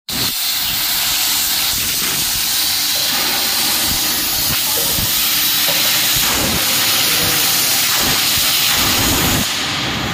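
Plasma cutter cutting through stainless steel plate: a loud, steady hiss of the cutting arc and air jet, easing slightly near the end.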